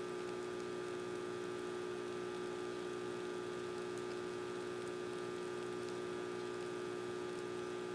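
A steady electrical-sounding hum made of several fixed tones, unchanging throughout.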